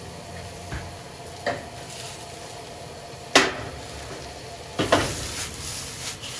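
Vegetables sizzling in a smoking-hot wok over a gas flame as they are stirred and tossed. A sharp metal clank about halfway through is the loudest sound, followed by a run of clattering and louder sizzling.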